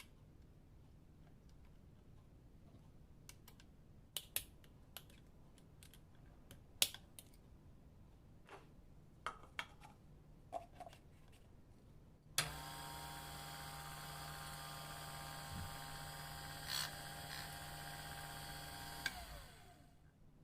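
Scattered clicks and knocks of parts being handled, then an electric coffee grinder's motor switches on with a steady whine, runs for about seven seconds and spins down near the end.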